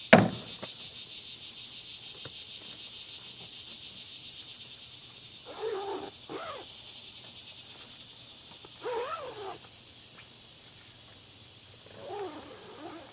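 A utility vehicle's cab door shuts with one sharp bang, over a steady chirring of insects. Three short meow-like calls follow a few seconds apart, each rising and falling in pitch.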